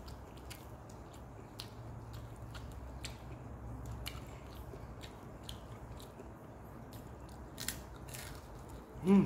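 Close-up mouth sounds of a person chewing and biting crisp fried food, with small crunches scattered throughout.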